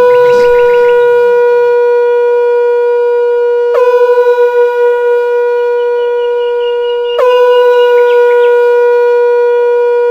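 Conch shell (shankha) blown in three long steady blasts, one straight after another, each held about three and a half seconds on the same note.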